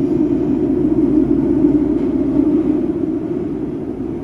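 Running noise inside a Nagoya Municipal Subway 5050-series car in a single-track shield tunnel: a loud, steady rumble that swells a little mid-way and eases slightly near the end.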